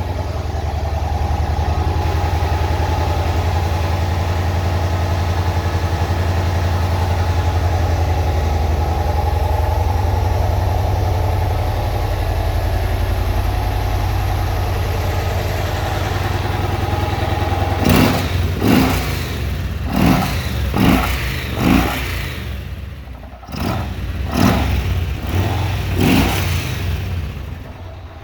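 Yamaha XV1700 Road Star Warrior's big V-twin idling steadily, then revved in a string of short throttle blips from about 18 seconds in. It is freshly started with its airbox reattached to the throttle bodies, and the owner judges it runs smoothly.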